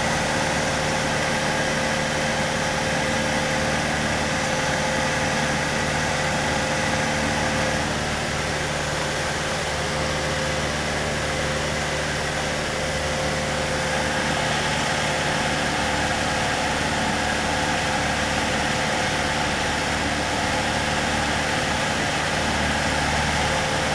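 Cessna 152's four-cylinder Lycoming engine and propeller drone steadily, heard from inside the cockpit together with the rush of air over the airframe. The tone shifts slightly about eight seconds in and again near the end.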